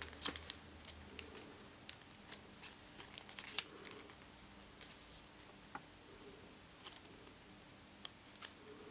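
Origami paper crinkling and crackling as fingers fold and pinch it into shape: a scatter of short, sharp crackles, thickest in the first few seconds and sparser later.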